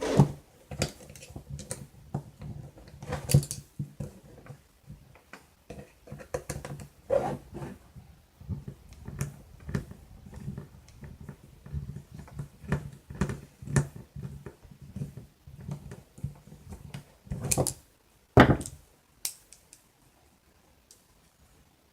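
Irregular small clicks, taps and light scraping of hand tools working screws and parts loose on a radio-controlled truck's steering and suspension, stopping near the end.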